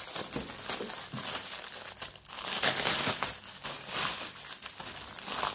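Thin clear plastic packaging bag crinkling and rustling as hands unwrap an oil spray bottle from it. The crinkling is uneven and grows louder around the middle.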